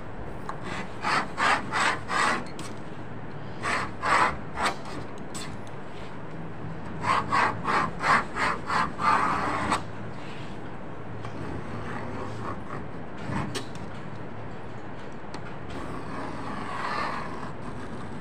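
Hand knife scraping through leather in short rasping strokes, two or three a second, in three bursts, the longest about seven seconds in; a fainter scrape near the end.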